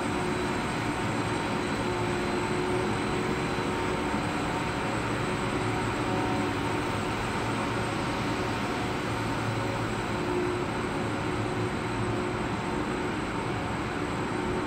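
Abrasive nylon filament extrusion line running: a steady machine hum with several constant tones over an even whirring noise from the extruder drive and the haul-off roller stands.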